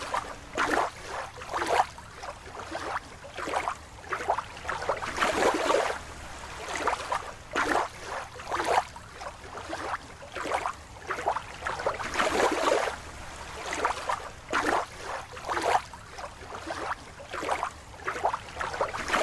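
Water splashing and sloshing in a plastic tub as a rubber toy is swished through it by hand, in irregular splashes one or two a second.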